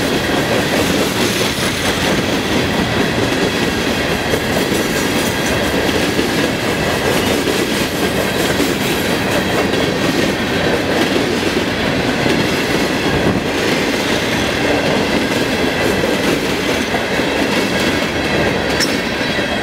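Herzog ballast hopper cars rolling past, a steady loud noise of steel wheels running on the rails.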